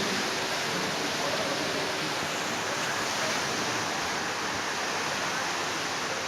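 Steady rushing of sea surf breaking on a beach, an even hiss with no distinct breaks.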